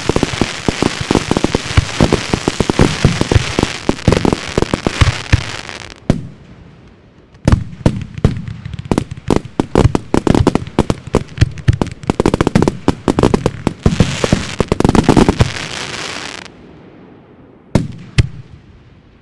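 Fireworks going off: dense volleys of rapid bangs and pops, a lull of about a second and a half around six seconds in, then a second dense volley that stops suddenly, followed by two last single bangs near the end.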